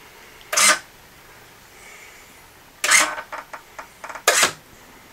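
A high-torque ProModeler model-aircraft servo whirring in three short bursts as it swings a wing flap through a Rotary Drive System, with a few light clicks between the last two bursts.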